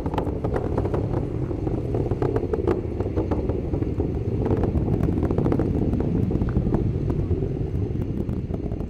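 Falcon 9 first stage with its nine Merlin engines firing in ascent, just past Max-Q: a steady deep rumble with sharp crackling, easing slightly near the end.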